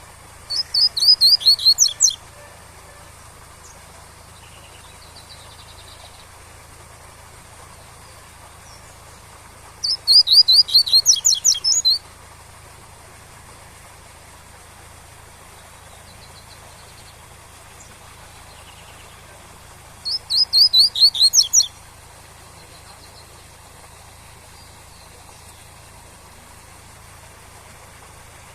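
Coleiro (double-collared seedeater) singing its tui-tui song: three quick runs of rapid high notes, each under two seconds and about ten seconds apart. A steady rush of waterfall runs underneath.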